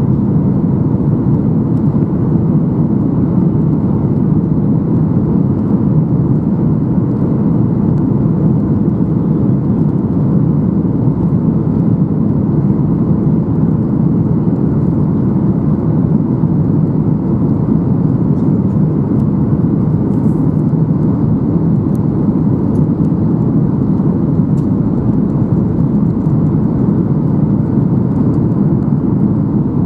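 Steady cabin rumble inside a Boeing 737-800 in flight: the CFM56-7B turbofan engines and airflow past the fuselage make an even, low roar that holds constant throughout.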